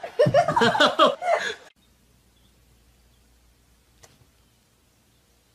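A loud, high, chaotic vocal outburst lasting about a second and a half that cuts off abruptly, followed by a near-quiet room with one faint click about four seconds in.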